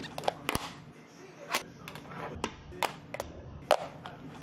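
Fingerboard tricks: the small deck's tail popping and the board landing on a fabric-covered box, a string of sharp, irregular clicks and clacks about every half second.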